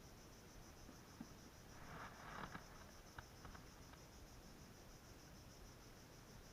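Faint insects trilling steadily in a high, rapidly pulsing chorus. About two seconds in comes a brief soft rustle with a few light clicks.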